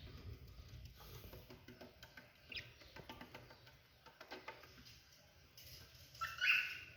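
Pet bird chirping: a short falling chirp about two and a half seconds in and a louder call near the end, over faint clicks and rustling.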